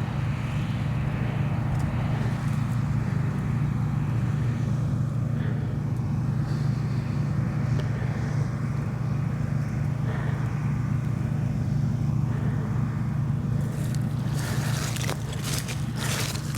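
Nearly 40-year-old combine harvester running steadily with a constant low hum while combining barley, with a run of crackling clicks near the end.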